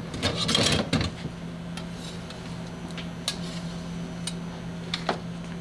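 Long serrated bread knife scraping and rasping briefly against a giant castella sponge cake in the first second, followed by a few light clicks of handling. A steady low hum runs underneath.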